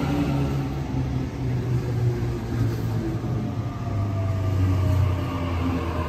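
Sydney Trains double-deck electric train moving along the platform close by, with a steady low motor hum and a fainter whine that falls in pitch in the middle.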